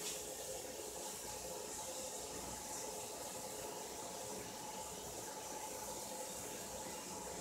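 Water running steadily from a bathroom tap into a sink, a continuous hiss, with a faint steady hum under it and a light click right at the start.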